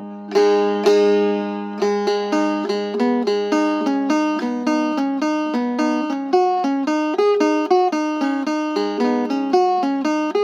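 Three-string phin (Isan lute) of one-piece mahad wood played solo: a plucked melody over a steady open-string drone, the notes coming quicker and more evenly after about two seconds.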